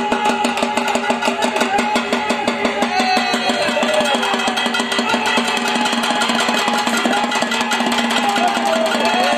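Fast, steady drumming on dhak, the large barrel drums of Bengali festivals, played as accompaniment to a Charak puja ritual, with a steady droning tone underneath and a few short sliding notes over it.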